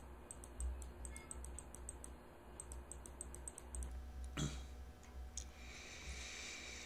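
Faint computer mouse clicks, several a second, stopping about four seconds in, as the GIMP clone tool is dabbed and resampled. Breathing follows near the end.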